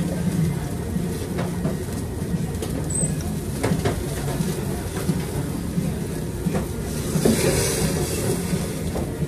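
Steady low hum of a yakiniku restaurant's ventilation, with scattered light clicks of chopsticks and dishes and a brief louder hiss about seven seconds in.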